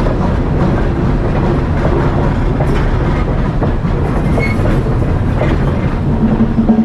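Passenger coaches and a caboose of a steam-hauled excursion train rolling past close by, a steady rumble with wheels clicking over the rail joints.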